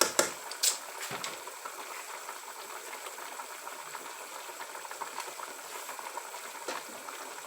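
Pot of meat boiling in spiced stock on a gas cooker: a steady bubbling hiss, with a few sharp clicks and knocks in the first second.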